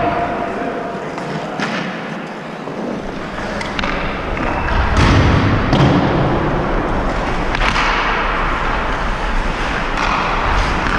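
Ice hockey play heard from a skater's head-mounted camera: skate blades scraping the ice and a steady rumble of wind on the microphone, broken by about half a dozen sharp clacks of sticks and puck.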